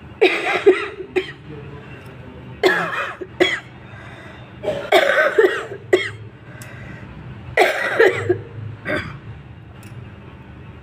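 A woman coughing in four fits a couple of seconds apart, each fit a quick run of several coughs.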